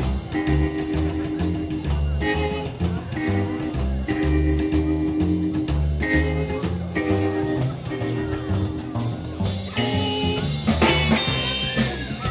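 Live band music led by a plucked upright double bass line, with a drum kit keeping time; a guitar comes in more strongly near the end.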